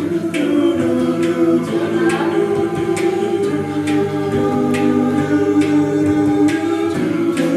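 A cappella group singing sustained backing chords without words, over vocal percussion that keeps a steady beat with a sharp hit a little more than once a second.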